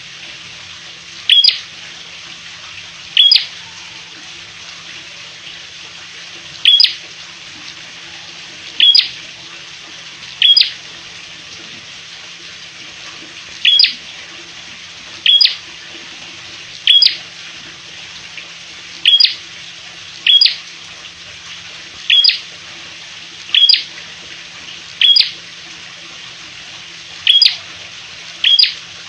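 A caged prenjak, a small prinia-type songbird, calling with short, sharp, high chip notes, one every one to two seconds, over a steady hiss.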